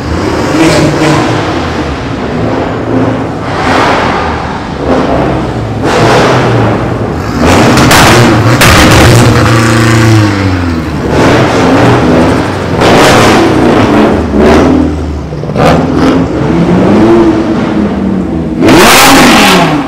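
Cars driving past one after another inside a concrete parking garage, engines revving up and down in several loud pulls, the exhaust echoing off the concrete; the loudest rev comes near the end.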